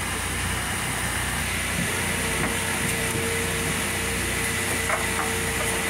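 Steady machinery drone with a low hum, holding an even level, joined about two seconds in by a steady hum tone; a couple of faint clicks come near the end.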